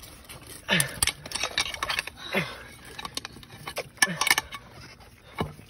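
Scraping, clattering knocks among mangrove roots as a mud crab is prised out of its hole. There are about four separate bursts, each with a short sound that falls in pitch.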